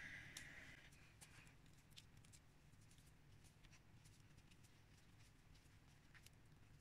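Near silence with faint handling noise: small scattered clicks and light rubbing as hands work a 3D-printed cylinder out of a silicone mould.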